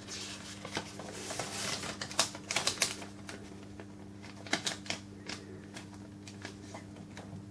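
A flexible plastic keyboard overlay rustling as it is laid over a Sharp XE-A213 cash register's flat keypad, then irregular fingertip taps on the keys as letters are typed in.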